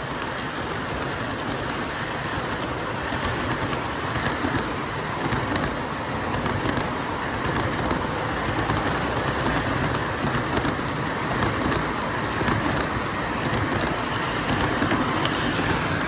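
Model Western Maryland M2 Challenger articulated steam locomotive running on a layout track with cars in tow: a steady rumble of motor and wheels on the rails, with faint clicking.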